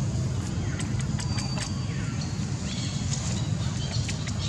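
Outdoor background: a steady low rumble, with scattered short high chirps and clicks over it.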